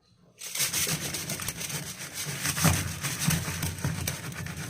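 Continuous rustling and scraping with many small clicks and knocks, starting about half a second in.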